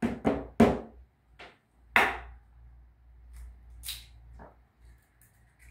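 An egg knocked against the rim of a plastic mixing bowl to crack it: three quick knocks in the first second and a louder one about two seconds in, then fainter clicks as the shell is pulled apart.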